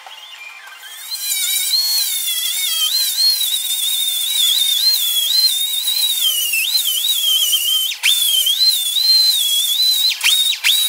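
High-speed power grinder whining on sheet metal, starting about a second in; its pitch wavers and dips sharply a few times near the end as the tool is loaded.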